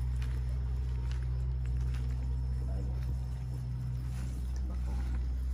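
Steady low drone of an engine running, unchanging throughout, with faint scattered clicks over it.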